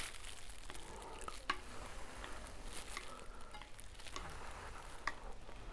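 Food sizzling faintly, with a few sharp clicks of utensils.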